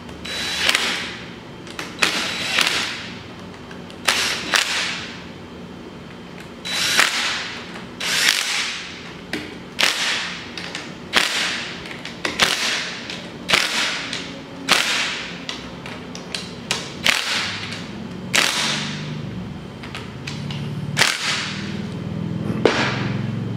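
Cordless drill/driver running in about twenty short bursts, each under a second, as it snugs engine case bolts down one after another in a crisscross pattern.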